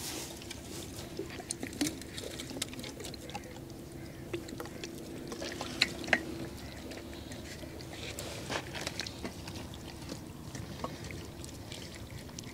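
Soy sauce poured from a bottle onto a raw whole chicken on a steel plate, then hands rubbing it into the meat with soft wet sounds. There are scattered small clicks, two sharper ones about six seconds in.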